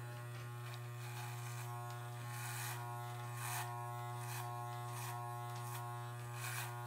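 Wahl electric hair clippers running with a steady low buzz as they are worked up around the ear. There are a few brief rasping bursts as the blade bites into the hair.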